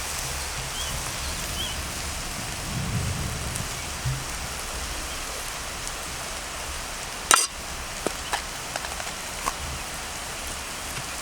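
Food sizzling over a campfire: a steady hiss, with one sharp crack a little past the middle and a few small ticks after it.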